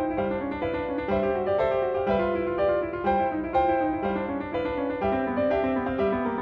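Background piano music, a steady run of single notes at about three a second.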